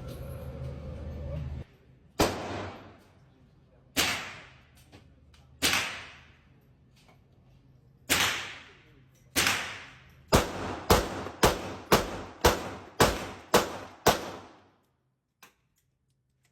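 Gunshots at a shooting range, each with an echoing tail: five shots a second or two apart, then a rapid string of about nine at roughly two a second.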